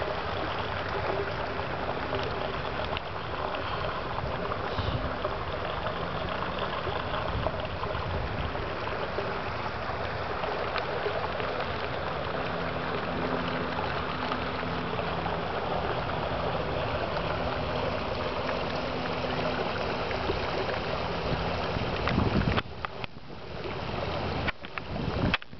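Steady rushing noise of torrential rain and muddy floodwater running across a flooded yard. Near the end it briefly drops away, then comes back with more low rumble.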